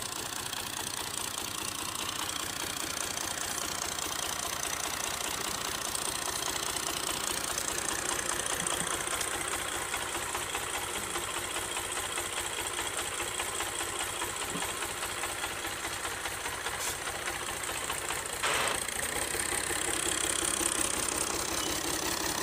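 Fiat 480 tractor's diesel engine running steadily, driving two tubewell pumps through a long flat belt and shaft. A brief burst of noise comes about three-quarters of the way in.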